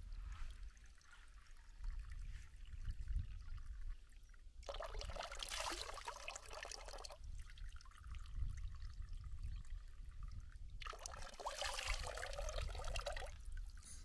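Spring water trickling from a fountain spout into a concrete trough, with two spells of splashing a few seconds apart as water is cupped in the hands and splashed over the face.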